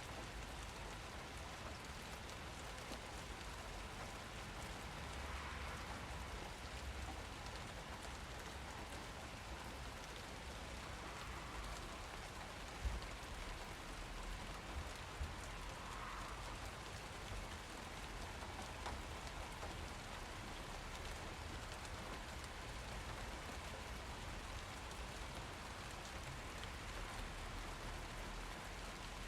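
Steady rain falling as an even hiss, with a few single louder drop impacts near the middle.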